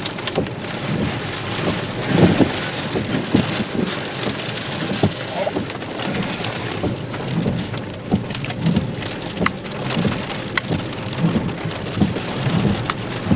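Rain striking a car's roof and windshield, heard from inside the car. Many sharp ticks of drops hit the glass over an uneven low rumble.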